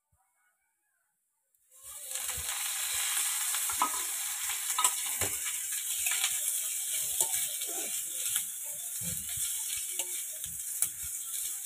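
Sliced onions sizzling as they fry in a black pan over a wood fire, stirred with a steel spoon that scrapes and clicks against the pan. The sizzling starts suddenly about two seconds in, after silence, and then runs steadily.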